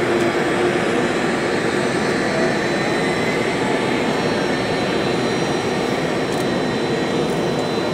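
Business jet engines running steadily at idle on the apron: an even jet rush with a thin, steady high whine over it.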